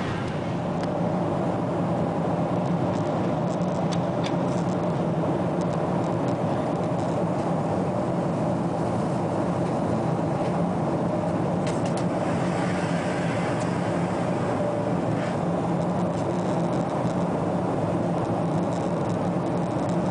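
Steady cabin drone of a Boeing 777-300 in cruise, the engines and airflow heard from inside the cabin, with a low even hum and a few faint clicks.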